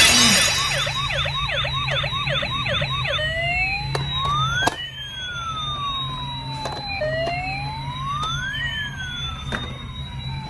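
Toy ambulance's electronic siren, starting with a sharp click, then a fast warbling yelp for about three seconds, then a slow wail that rises and falls twice.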